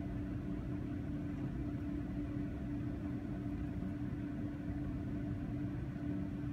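Steady low background hum with one constant tone, from an unseen running machine or appliance; no sound of the mineral being handled stands out.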